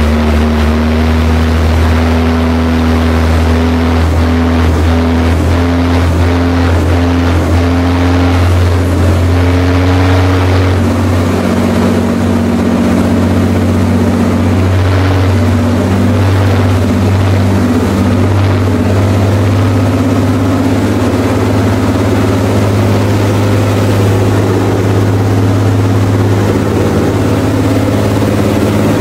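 1330-horsepower Komatsu marine diesel driving a waterjet boat at speed: a loud, deep, steady exhaust drone over the rushing water of the wake. The engine note shifts slightly a few times.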